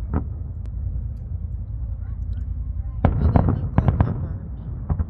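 Fireworks going off: a sharp bang at the start, then a quick cluster of bangs and crackles about three seconds in, and one more bang near the end, over a steady low rumble.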